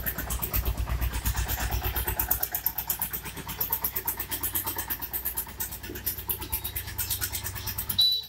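A small engine or motor running with a fast, even pulse and a low rumble, stopping abruptly near the end.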